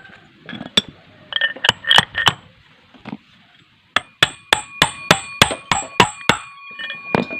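Hammer tapping a bearing into its seat in a scooter's CVT pulley: a few scattered blows, then a steady run of about a dozen metal strikes, roughly three a second, each with a short metallic ring.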